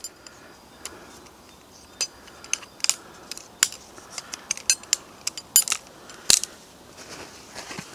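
Aluminium tube frame of a small folding camp table being folded up: a run of sharp, irregular metal clicks and clinks, several close together.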